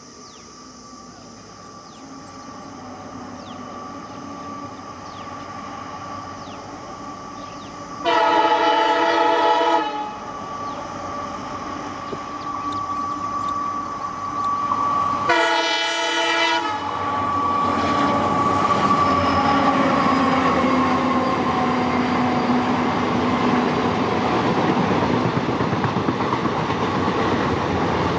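An EMD WDP4 diesel-electric locomotive with its two-stroke V16 engine approaching with a passenger train, growing louder, and sounding its horn twice: a blast of about two seconds some eight seconds in and a shorter one a little past the middle. The locomotive and coaches then run past with a loud, steady rumble of engine and wheels on rail.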